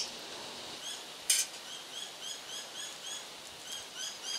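A small bird chirping in a steady run of short, high notes, about three a second. One brief, sharp noise about a second in is the loudest moment.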